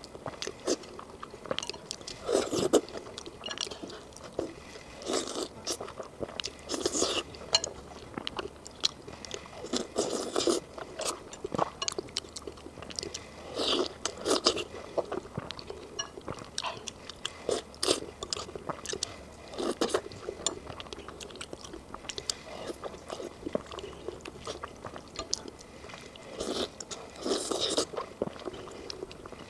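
Close-miked eating sounds: a person biting and chewing soft pig brain with sauce, in many short, irregular mouth sounds.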